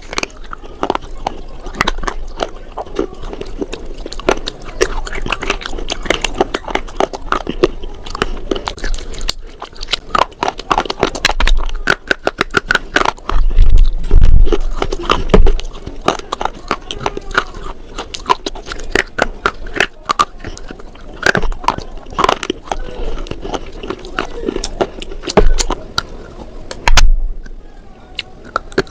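Close-miked biting and chewing of slate: dense, crackly crunching throughout, with a few heavier low thumps around the middle and once near the end.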